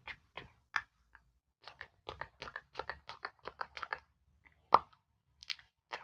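Close-miked ASMR mouth sounds: quick wet clicks and smacks like pretend chewing. They come a few at a time at first, then in a dense run of about seven a second in the middle, with one louder pop nearly five seconds in.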